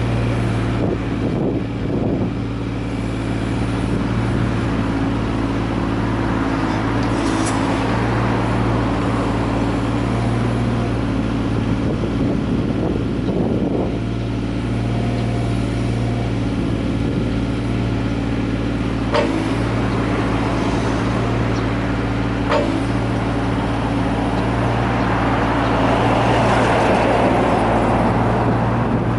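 Komatsu PC15R-8 mini excavator's diesel engine running steadily. Two sharp clicks come partway through, and a swell of rushing noise rises near the end.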